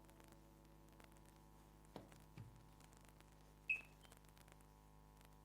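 Near silence over a steady low hum, broken by a couple of faint knocks and one short, sharp click a little after halfway: a plastic lens hood being handled and slid into its lock on a camcorder.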